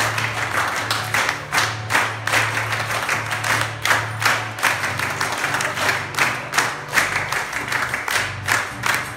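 Audience clapping in time, roughly two claps a second, along with music for a Chilean cueca dance.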